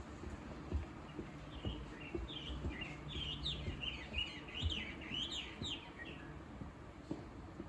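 A wild songbird sings a quick, jumbled run of varied chirping and slurred whistled notes. The run starts about a second and a half in and stops after about five seconds, over a low steady rumble with a few soft knocks.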